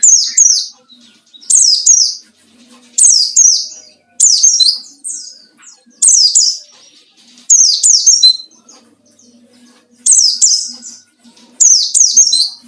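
A wild-caught white-eye (pleci) calling loudly in short, high, falling chirp phrases, repeated about every one and a half seconds, eight times, the rival-seeking calls used to provoke other white-eyes into singing.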